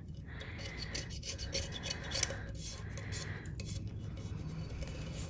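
Small pieces of cured epoxy being scratched off the inside rim of a stainless steel tumbler: a steady run of short scrapes and ticks, with one sharper click about two seconds in.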